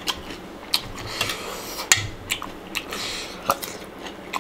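Metal spoon clinking and scraping against a stainless steel bowl of wet salad as food is scooped up: a string of sharp clinks spread over the few seconds.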